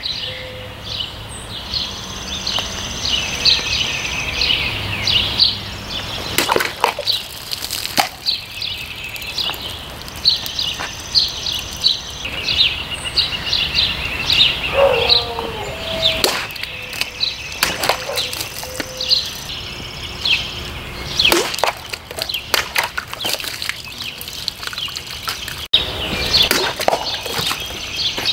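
Large folding knife with a 5.5-inch blade slashing through bottles: several sharp cuts and chops spread through, over steady chirping of birds.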